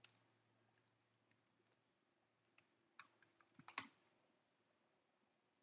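A few faint computer keyboard keystrokes: a couple at the start, one or two about two and a half to three seconds in, and a quick cluster just before the four-second mark, with near silence between.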